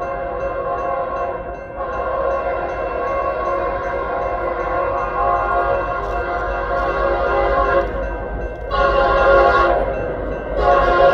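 Multi-chime air horn of an approaching Union Pacific SD70M locomotive sounding a chord in a pattern of two long blasts, a short one, and another long one beginning near the end: the standard grade-crossing signal.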